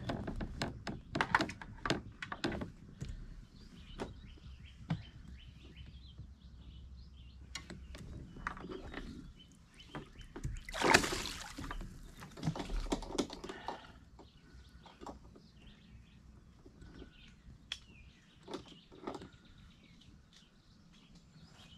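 Scattered clicks and knocks of gear being handled on a plastic kayak, busiest in the first few seconds, with one louder rustling burst about eleven seconds in.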